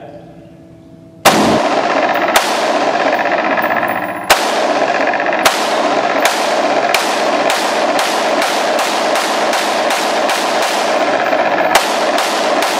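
Kel-Tec PLR-16 5.56 mm pistol fired in a rapid semi-automatic string, starting about a second in: a few spaced shots, then quickening to about two or three shots a second. Each loud shot rings out with heavy echo off the concrete walls of an indoor range.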